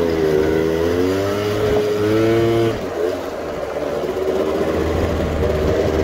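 Scooter engines running at riding speed, their pitch wavering up and down as the throttle is worked. The sound dips in level a little under three seconds in.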